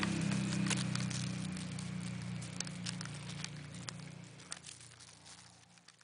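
A low, steady motor hum that fades away over several seconds. Over it comes a scatter of short crackling clicks: footsteps and dogs' paws on a gravelly path.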